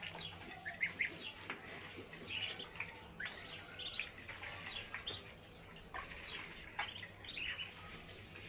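A flock of goslings and ducklings peeping as they feed, short high chirps coming one after another.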